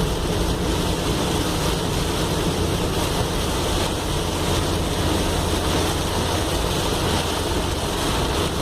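Car driving through a heavy tropical downpour: a steady rush of rain on the car and tyres throwing up water from the flooded road, over a constant low drone of road and engine.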